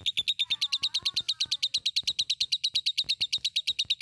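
Fischer's lovebird chattering: a long unbroken trill of short, high, rasping chirps, about a dozen a second, the continuous 'ngekek' song prized in a gacor lovebird.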